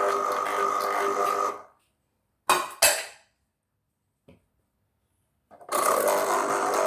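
Electric citrus juicer motor running with a steady whine, cutting off about one and a half seconds in. Two sharp knocks follow about a second later, and the motor starts up again near the end.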